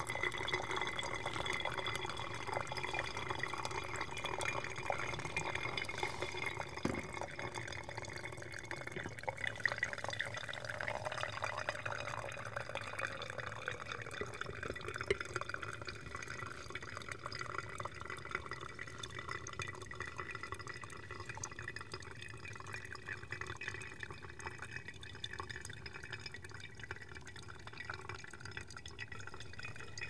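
Brewed coffee trickling from a Hario V60 pour-over dripper into a glass server, a thin stream and drips running into the liquid below. The flow eases and grows quieter over the second half.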